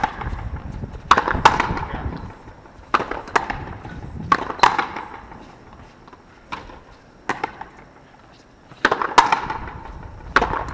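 Frontenis rally: a hard rubber ball struck with rackets and smacking off the concrete fronton wall, sharp cracks, often two in quick succession, each ringing briefly off the court walls.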